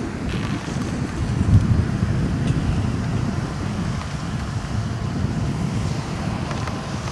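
Wind rumbling on the microphone, with a louder gust about a second and a half in.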